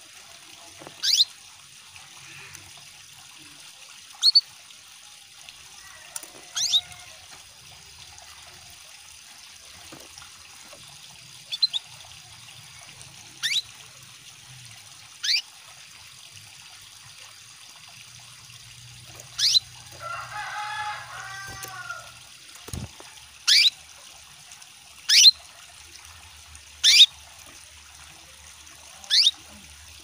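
Female domestic canary giving short call notes that sweep downward in pitch, one every second or two, the calls of a hen in breeding condition calling to a male, over a steady trickle of water. About two-thirds of the way through comes a brief, lower chattering phrase.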